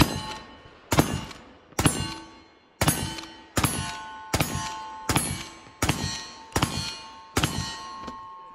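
Ten quick shots from an Uberti 1873 lever-action rifle loaded with black powder, a little under one a second. Each shot is followed by the ringing clang of a steel target being hit.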